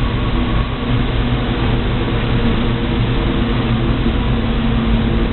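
Steady, loud machinery hum inside a container ship's accommodation, with a few held low tones over a constant rushing noise: the ship's engine and ventilation running.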